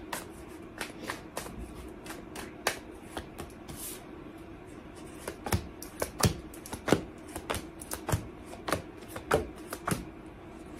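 A deck of tarot cards shuffled in the hands, then cards drawn and laid down one after another on a wooden table: a run of short light clicks and slaps that comes faster from about halfway through.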